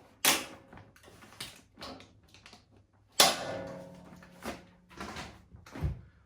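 Parts of an Axminster Craft AC82E dust extractor being handled and fitted during assembly: a string of irregular knocks and clunks, the loudest a metallic clang about three seconds in that rings on briefly.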